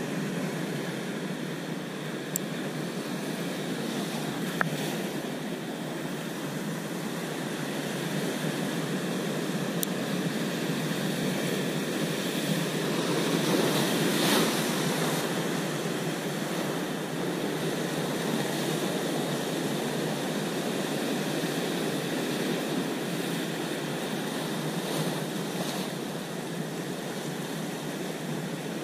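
Sea surf breaking and washing over rocks, a steady rush that swells into a louder wave crash about halfway through, with a few faint clicks in the first seconds.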